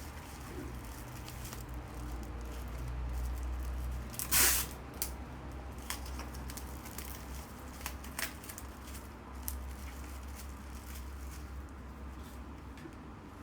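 Hands handling bouquet-making materials: scattered small clicks and rustles, with one louder short rasp about four seconds in, over a steady low hum.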